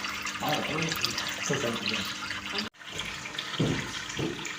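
Steady splash of running water, with faint voices in the background and a brief dropout to silence about two and a half seconds in.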